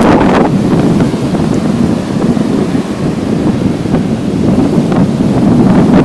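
Wind buffeting the microphone over the wash of small sea waves breaking on a sandy shore. The wind noise eases in the middle and builds again near the end.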